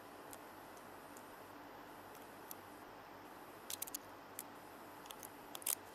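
A few faint, sharp metallic clicks of lock-picking tools against the keyway of an AMIG lock, scattered over the second half and loudest near the end, over a low steady hiss.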